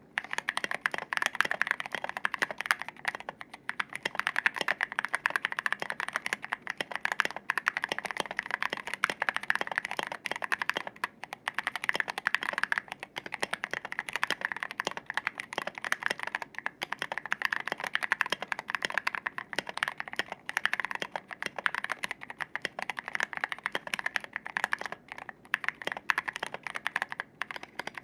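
Fast continuous typing on a custom mechanical keyboard with lubed Zealios V2 tactile switches in an acrylic case, a dense run of keystrokes with brief pauses between bursts.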